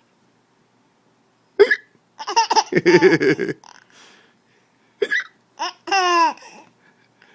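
A man hiccups sharply twice, about one and a half seconds in and again about five seconds in. A baby bursts into high giggling laughter after each hiccup.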